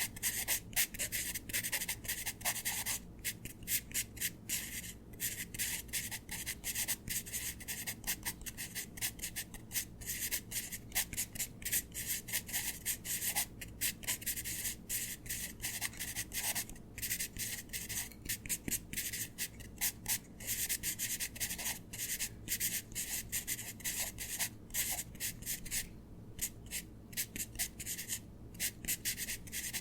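A stylus scratching across a tablet screen in fast, short drawing strokes, one after another with brief pauses, as in sped-up digital drawing.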